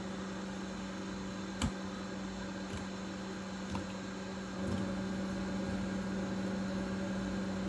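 A steady low hum, like a running appliance or fan, with one sharp click about a second and a half in and a few faint taps.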